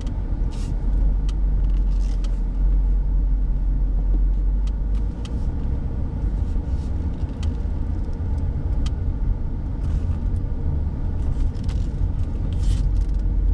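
Low, steady engine and road rumble of a 2010 police-package Dodge Charger, heard from inside the cabin while it is being driven.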